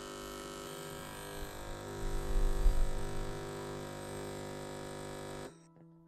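Espresso machine pump humming steadily as it pushes water through the double-shot coffee, louder for about a second around two seconds in, then cutting off suddenly near the end as the programmed two-cup shot finishes.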